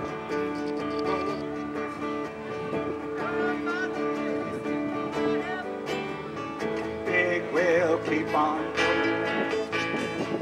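Live band playing: strummed acoustic guitars and bass under an electric guitar lead line with bends and vibrato, strongest about three quarters of the way through.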